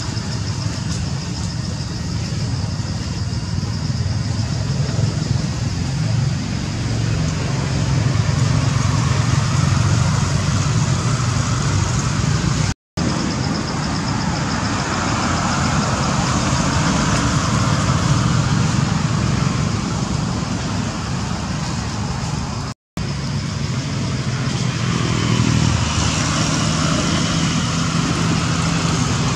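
Steady outdoor background noise, a continuous low rumble with a hiss on top, that cuts out completely twice for a split second.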